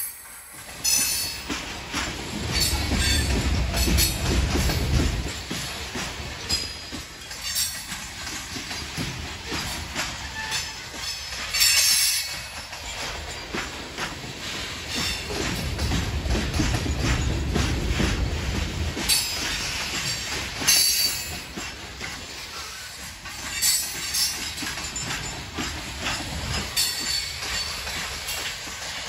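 Loaded coal hopper cars rolling past on steel wheels, a steady rumble full of quick clicks from the wheels crossing rail joints. The low rumble swells twice, and a few brief high-pitched wheel squeals cut through.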